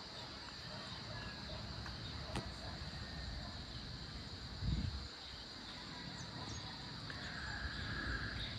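Steady, high-pitched insect chorus over a faint low outdoor rumble, with one brief low thump about halfway through.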